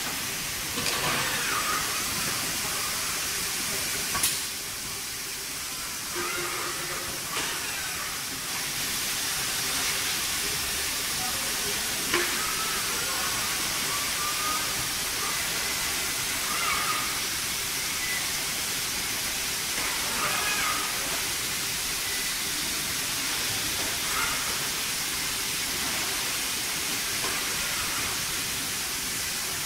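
Steady hiss of factory-floor machinery noise in a robotic car-body assembly line, with faint wavering tones coming and going and two sharp clanks, one about four seconds in and one about twelve seconds in.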